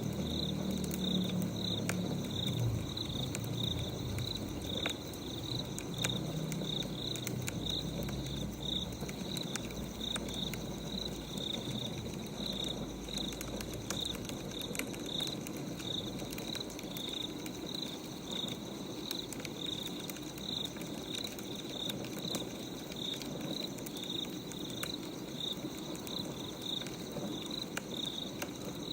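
Crickets chirping steadily, about two chirps a second, with scattered light crackles and clicks over it.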